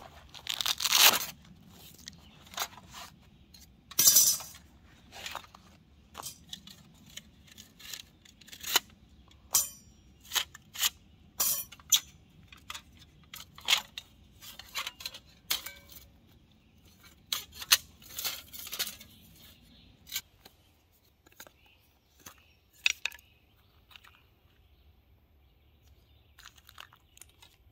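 Folding metal Firebox camp stove being unpacked and assembled by hand: rustling and tearing as its pouch is opened, then a long run of sharp metal clicks and clinks as the hinged panels are unfolded and fitted together, fading to a few faint taps near the end.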